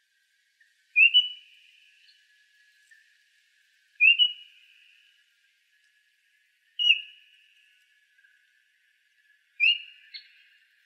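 A bird calling four times, about three seconds apart: each call a single clear whistled note that slides up quickly, then holds briefly and fades. A faint steady high tone runs underneath.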